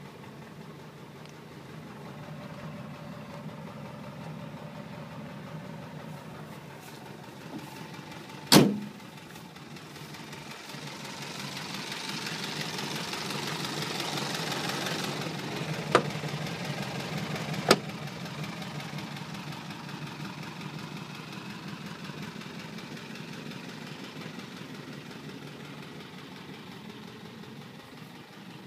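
1962 Volkswagen Fusca (Beetle)'s 1200 cc air-cooled flat-four engine idling steadily, louder for a few seconds in the middle when heard close at the open engine lid. A single sharp thump comes about a third of the way in, and two lighter clicks come just after the middle.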